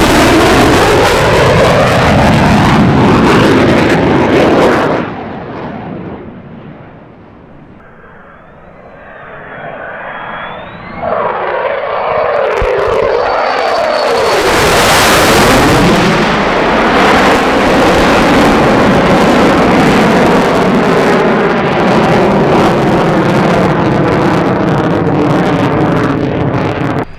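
Fighter jet flybys: an F/A-18 Hornet's loud jet engine noise with a sweeping, phasing whoosh as it passes, cut off suddenly about five seconds in. Then, after a quieter stretch, an F-35's jet noise builds from about eleven seconds in and stays loud as it flies over and climbs.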